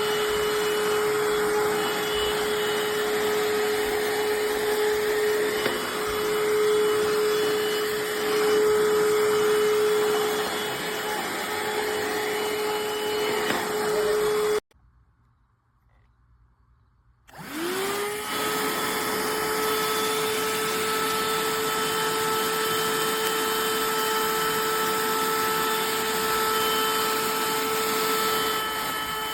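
Cordless handheld vacuum running with a steady high motor whine and airflow hiss. About halfway through it cuts off suddenly, and a few seconds later it starts again, its whine rising in pitch as the motor spins up before settling steady.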